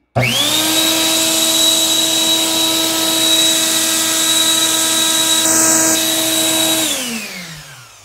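Blender's brushed universal motor, running with no jar on it and set to maximum speed by its electronic speed control, starts abruptly and runs at a steady high whine. After about seven seconds it is switched off and winds down, its pitch falling.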